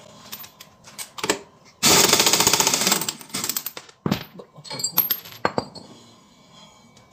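Metal clicks and knocks from hands working on a scooter's open CVT belt drive, its engine stopped, with a harsh rattle lasting about a second about two seconds in.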